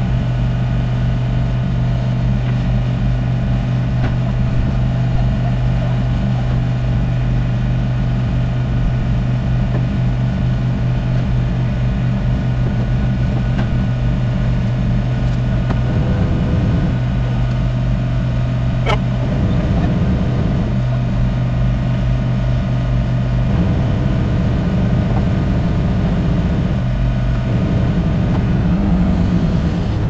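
Heavy construction machinery engines running in a steady drone, the tone shifting a few times as the load changes, with one sharp click about two-thirds of the way through.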